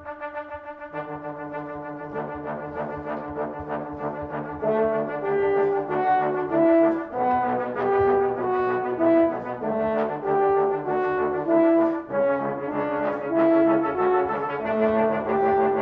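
Brass quintet of two trumpets, French horn and two trombones playing contemporary chamber music. It starts soft, with held low notes entering about a second in. About five seconds in it grows louder, a line of short detached notes moving over a low bouncing part.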